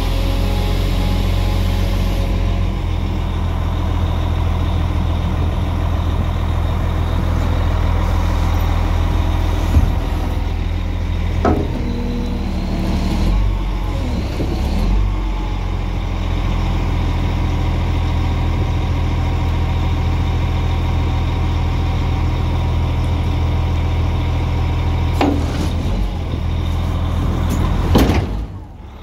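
Caterpillar 966H wheel loader's six-cylinder diesel engine running steadily, with a couple of metallic clanks and a short rise and fall in pitch around the middle as the bucket is lowered.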